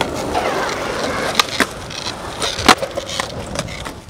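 Skateboard wheels rolling over rough asphalt with a steady gritty rumble, broken by a few sharp knocks from the board, the loudest about two and a half seconds in.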